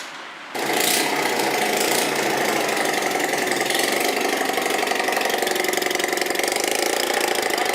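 Bajaj Platina motorcycle's single-cylinder four-stroke engine idling with its silencer removed, the bare exhaust giving a loud, rapid, even rattle. It comes in suddenly about half a second in and runs steadily.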